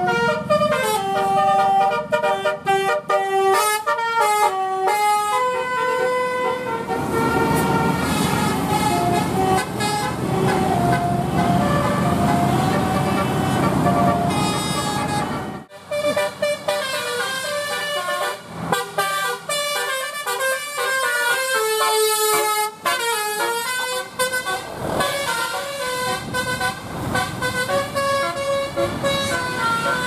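Bus telolet horns: multi-tone air horns playing quick melodic tunes, the notes stepping up and down, with bus engine and traffic noise underneath. The sound cuts off sharply about halfway through and another horn tune starts.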